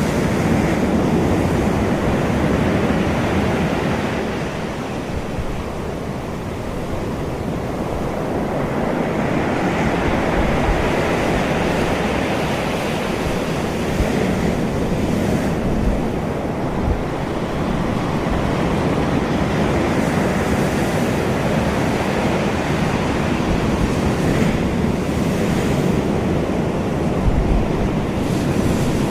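Ocean surf: waves washing in, the noise swelling and easing slowly.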